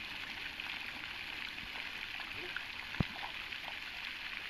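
Steady rushing of running water, with faint, indistinct voices in the background and a single sharp knock about three seconds in.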